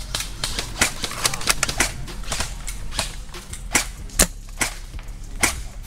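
Airsoft guns firing: a run of sharp snapping shots at uneven intervals, roughly two or three a second. Some are louder and closer than others, with the loudest about four seconds in.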